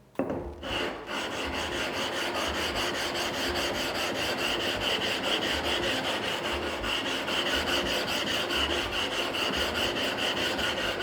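A 120-grit flattening brick is rubbed back and forth over an NSK Kogyo 800-grit diamond sharpening stone, making a steady gritty scraping that starts about half a second in. This is the stone being lapped to wear down its high spots and keep it flat.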